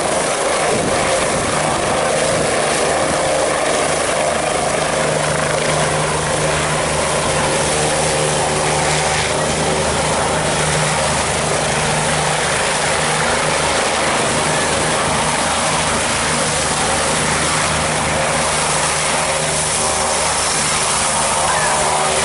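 Helicopter setting down on its pad and running on the ground with the rotor turning: a loud, steady turbine-and-rotor drone with a low hum underneath.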